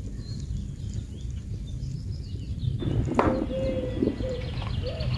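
The lid of a jar of lentils being twisted open by hand: a short scrape and rattle about three seconds in, over a low steady background rumble. Faint bird chirps come before it and a wavering bird call follows it.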